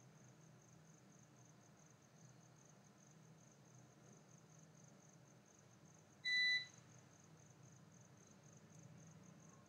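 Quiet room tone with a faint, steady high-pitched pulsing tone, broken once a little over six seconds in by a single short electronic beep.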